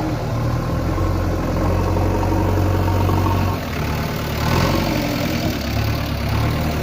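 JCB 3DX backhoe loader's diesel engine running steadily at low revs, its note changing briefly about halfway through.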